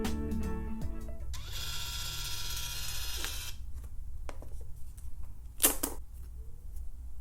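Small app-controlled label maker printing, its motor whirring steadily for about two seconds as it feeds out a cable label. A few light clicks follow, then one sharp click about two seconds later.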